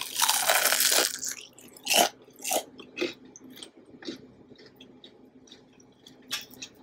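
A crunchy bite into a crispy deep-fried chicken wing for about the first second, followed by chewing with several sharp crunches of the crust that grow softer.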